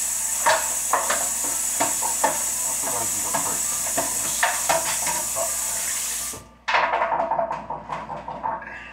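Kitchen tap running steadily, with dishes clinking under the stream, until it is shut off abruptly about six seconds in; a pan and dishes then clatter.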